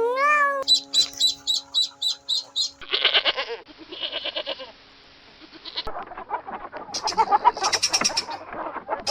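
A series of different animal calls in turn. First a drawn-out pitched call that dips and rises, then a quick run of high peeps at about four a second, then harsher, noisier cries.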